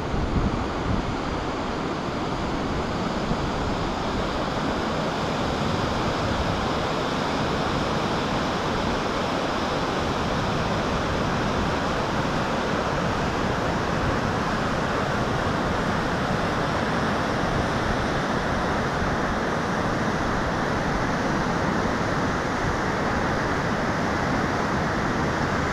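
Elwha River rapids: whitewater rushing steadily over boulders, growing slightly louder a few seconds in and then holding even.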